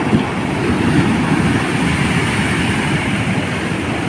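Heavy surf breaking and surging onto a beach: a loud, steady rush of waves.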